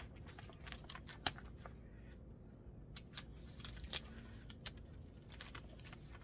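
Faint, scattered clicks and light rustles of a paper magazine being handled and its pages turned, with two sharper ticks about a second in and about four seconds in.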